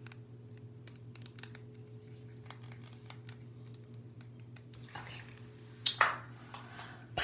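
Fingernails tapping lightly on a glass nail polish bottle, a scattered string of faint clicks over a steady low hum. A louder burst of handling noise comes about six seconds in.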